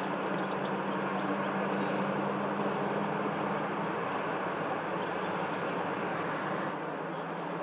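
Steady low rumble and hum of distant motor traffic, with faint high bird chirps at the start and again about five seconds in.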